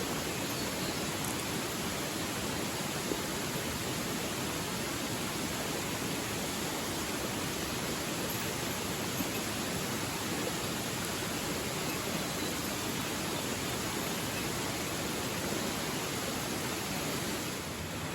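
Steady rushing of a mountain stream or small waterfall, an even hiss of water with no breaks.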